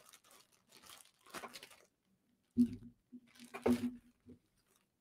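Plastic packaging crinkling and rustling as it is handled, followed about halfway through by a man's short wordless hum or murmur.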